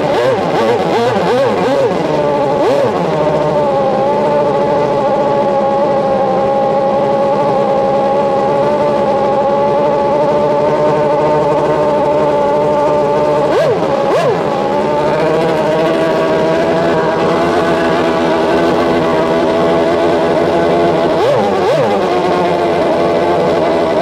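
Racing outboard motor on a hydroplane run up in place while the boat is held still in the shallows, its propeller throwing a plume of spray. The engine note holds steady and loud, wavering briefly in pitch about halfway through and again near the end.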